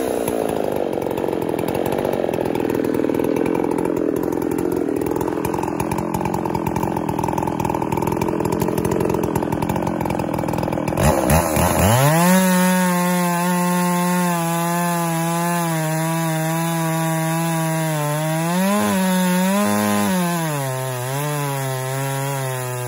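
Two-stroke chainsaw on an Alaskan chainsaw mill running under load as it rips a slab lengthwise off a pine log. It sounds rough and noisy for about the first half, then settles into a clear, steady engine note, which rises briefly near the end and settles slightly lower.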